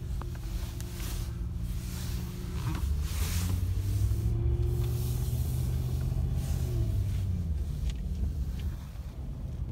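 Dodge Ram pickup's engine running steadily at low revs, heard inside the cab, with a few brief rustles of the phone rubbing against clothing.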